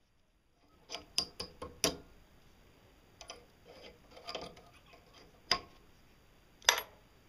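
Sharp metal clicks and taps of needle-nose pliers on a stainless steel rod clamped in a vise: a quick run of clicks about a second in, then a few scattered ones, the loudest near the end.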